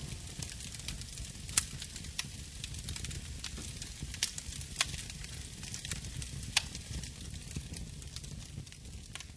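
Surface noise of an old record after the song has ended: steady hiss and low rumble with scattered sharp crackles and clicks, fading out near the end.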